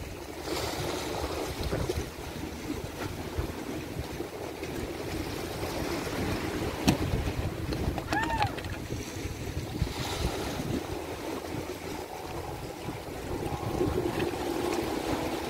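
Ocean waves washing against a rock ledge, with wind buffeting the microphone. A single sharp click about seven seconds in.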